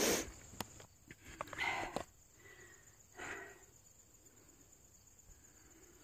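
Mesh head net and fingers rubbing over the phone's microphone: several scuffs and small clicks in the first three seconds or so, then only faint background.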